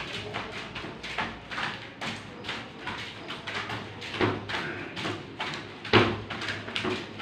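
Footfalls of a person jogging: a run of short thuds, about two to three a second, some landing harder than others.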